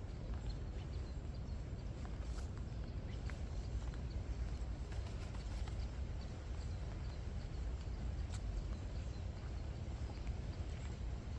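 Footsteps walking along a wet path, with scattered light ticks of raindrops and a steady low rumble underneath.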